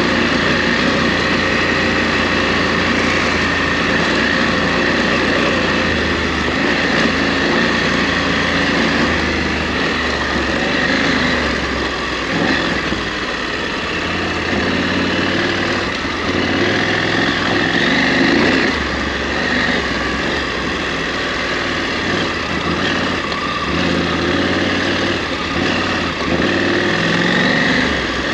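KTM 890 Adventure R's parallel-twin engine running as the bike is ridden off-road, its pitch rising and falling with the throttle.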